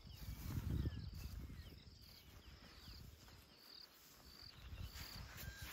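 Faint bush ambience: insects chirping in short, high, repeated notes, with a few bird calls. A low noise sits under them in the first second.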